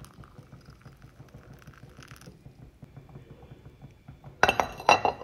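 A metal teaspoon clinking against a ceramic mug while stirring: a quick run of bright, ringing clinks about four seconds in, after a few seconds of only faint background noise.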